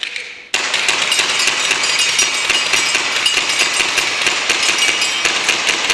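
Gas blowback airsoft pistols firing rapidly, with BBs striking metal targets: a dense, fast string of sharp cracks and ringing pings that starts suddenly about half a second in.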